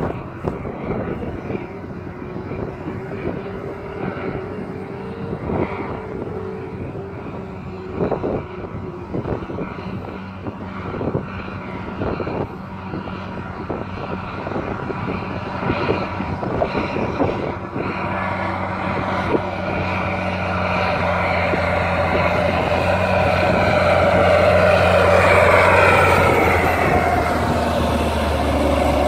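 Farm tractor pulling a loaded tipper trailer across a field, its engine running steadily and getting louder as it approaches, with gusts of wind on the microphone in the first half.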